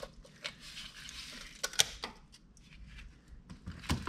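Multi-layer steel head gasket being lifted off an LS V8 block deck by hand: scattered light metallic clicks and ticks, with a sharper click a little under two seconds in and another near the end.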